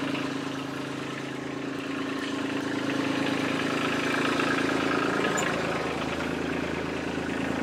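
Kubota loader's diesel engine running steadily at idle, a little louder about three to five seconds in.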